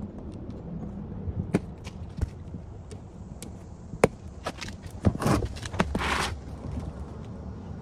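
Cardboard shipping box being cut open and handled: scattered taps and knocks, a sharp knock about four seconds in, and a scraping rush lasting about a second just after five seconds in.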